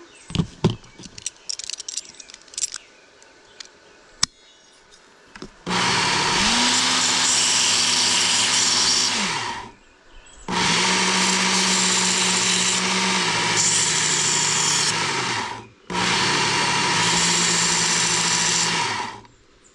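A few light clicks of handling, then a Work Sharp belt sharpener run three times in bursts of about four to five seconds. Its motor hums steadily under the hiss of the abrasive belt grinding down a steel Leatherman replacement wire-cutter insert.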